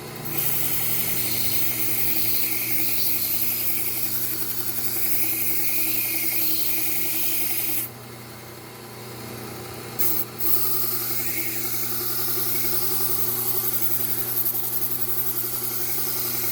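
A chef's knife edge is ground against the Trizact A30 (about 600 grit) belt of a running slow-speed belt sander, a hissing grind over a steady motor hum. The grinding stops for about two seconds around eight seconds in while the motor keeps running, then starts again for a second pass. This is the refining stage that raises a burr along the whole edge.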